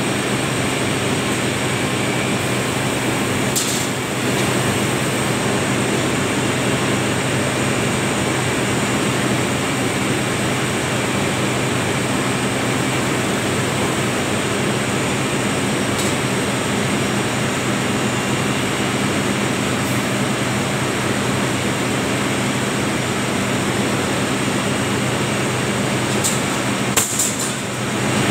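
Textile machinery in a cotton spinning mill running: a steady, even noise with a constant low hum underneath. A couple of brief clicks come near the end.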